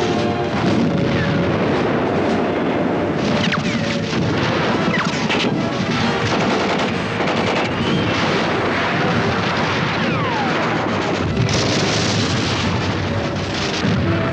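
Battle gunfire: dense, continuous crackling shots and heavier cannon booms, with a few falling whistles among them. Music sounds underneath, its held notes dying away in the first second.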